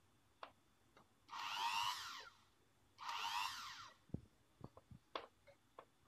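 Hand-held magnet wire stripping machine's motor run twice in short bursts of about a second each, followed by a string of light clicks and knocks.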